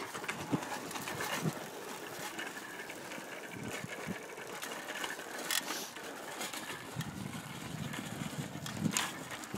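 A child's bicycle rolling along an asphalt path: a steady rush of tyre and wind noise with scattered light clicks and rattles, and a sharper click about halfway through and again near the end.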